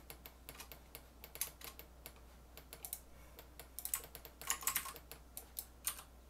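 Computer keyboard keys tapped in irregular short runs of clicks, with the busiest flurry about four and a half seconds in. Underneath runs a low, steady fan hum.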